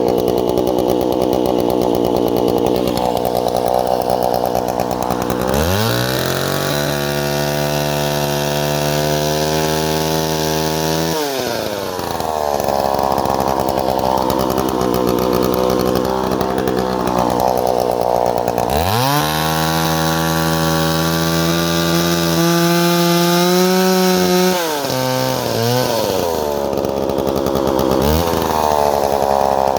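Homelite 350 two-stroke chainsaw engine idling and twice revved up to a high steady speed for about five seconds each, dropping back to idle in between, with a short throttle blip near the end. It runs, revs and returns to idle in working condition.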